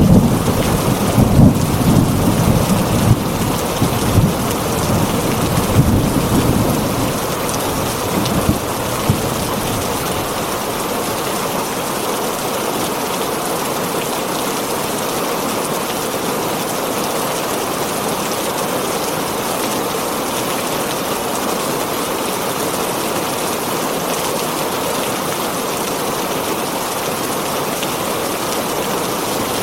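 Heavy rain falling on a tin roof, a steady dense patter, with thunder rumbling over the first several seconds and dying away; after that only the rain.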